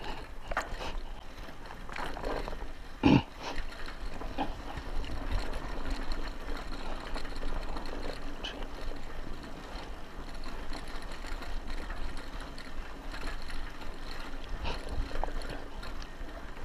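Buffalo Charger bicycle rolling over a rough dirt track, its tyres on the dirt under steady noise, with scattered knocks and clicks from the bike over bumps and one sharp knock about three seconds in.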